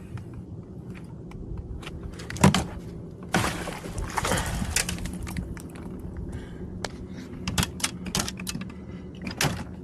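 Handling noise on a kayak: a run of sharp clicks, knocks and rattles, with one loud knock about two and a half seconds in and a rush of noise about a second later, over a steady low hum.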